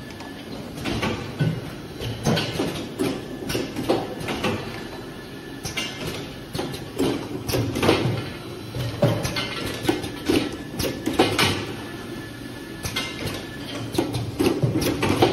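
Automatic bottle filling and capping machine running: irregular clicks and clunks from the pneumatic capping head and filler over a steady hum from the conveyor.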